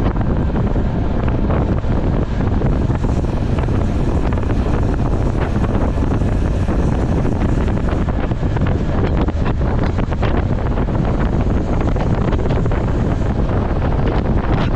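Wind buffeting the microphone of a camera riding on a bicycle at race speed, a steady low rumble, with scattered clicks and rattles from the bike.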